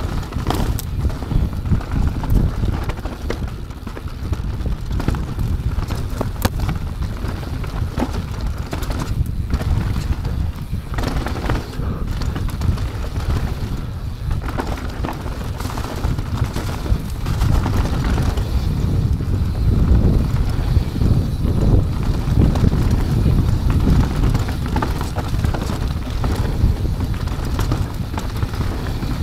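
Mountain bike descending a dirt downhill trail: a steady low rumble of tyres and wind, broken by frequent short clattering knocks and rattles from the bike. It gets somewhat louder about two-thirds of the way through.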